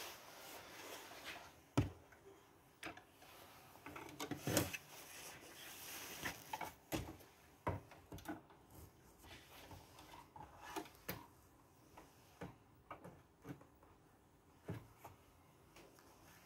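Irregular clicks and knocks of computer hardware being handled and fitted onto the motherboard of an open-frame mining rig, with two louder knocks in the first few seconds.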